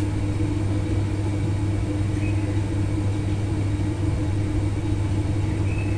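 A steady low hum with an even background hiss that does not change.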